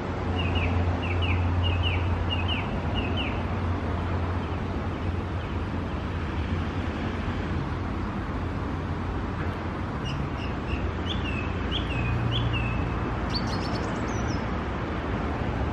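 Small songbird singing short runs of quick chirped notes, once in the first few seconds and again about ten seconds in, over a steady low rumble.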